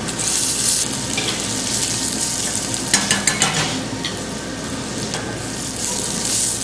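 Chopped onions sizzling in hot bacon fat in a stainless steel pan, being stirred with a wooden spoon; a few light knocks come about three seconds in.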